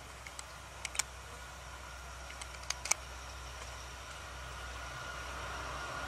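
Vietnam Railways D11H diesel-hydraulic locomotive approaching with a freight train: a steady low engine hum and a thin steady whine, slowly growing louder, with a few sharp clicks in the first three seconds.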